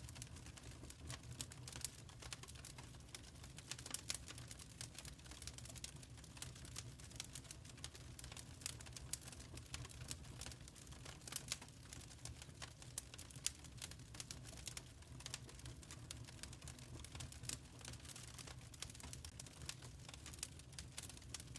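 Wood fire burning in a fireplace: logs crackling with a dense run of small irregular pops and snaps over a low, steady rumble of the flames.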